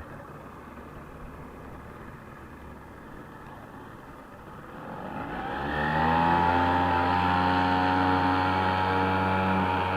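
Salyut-E small two-stroke outboard motor running quietly at low speed, then throttled up about five seconds in. Its pitch rises and it settles into a steady, louder run.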